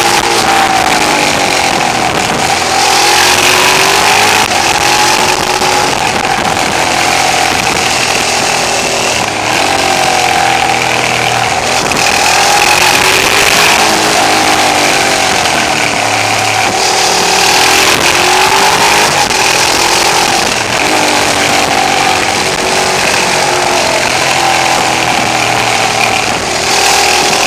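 Twin-cylinder motorcycle engine running under the rider, revs rising and falling again and again through the bends, with wind rushing over the camera microphone. The recording is overloaded and distorted, the camera's sound level set too high.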